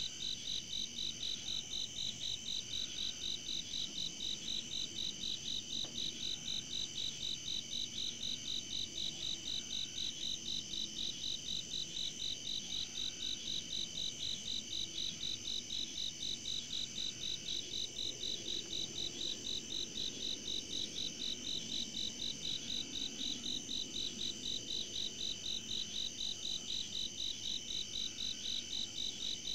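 Crickets chirping in a steady, even rhythm, about two and a half chirps a second, over a continuous high-pitched insect trill.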